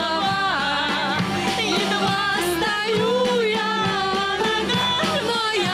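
Live band playing an upbeat song on drum kit, bass, guitar, keyboard and saxophone, with a wavering melody line over a steady bass.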